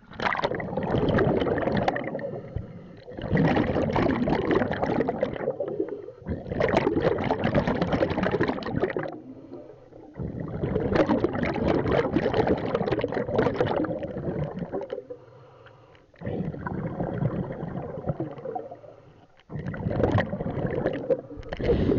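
Scuba diver breathing underwater through a regulator: about six long bursts of exhaled bubbles, each two to four seconds, with short quieter gaps between them for the inhale.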